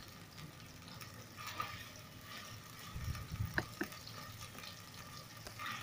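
Sliced onions sizzling softly in oil in a pot while a spatula stirs them, with two light clicks a little past the middle.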